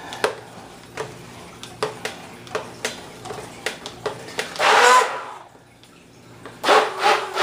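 Handheld immersion (stick) blender running in a bowl of tomato salsa, with a steady low motor hum and its shaft knocking against the bowl about every half second as it is moved around. The motor rises in a brief loud burst and stops about five seconds in, and a short louder sound follows near the end.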